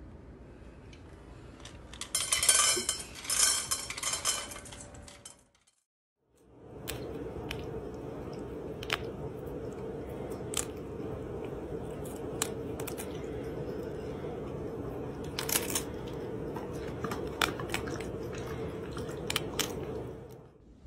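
A cat crunching and chewing a crisp romaine lettuce leaf, with scattered sharp crunches over a steady low hum. Before that, a loud burst of noise lasting about two seconds, then a short silent break.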